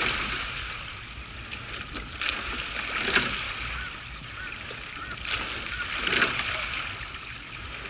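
A rowing eight paddling at light pressure: the sweep oars' blades splashing in and out of the water and the oars knocking in their oarlocks, a cluster of splashes and knocks about every three seconds with each stroke, over the steady rush of water along the hull.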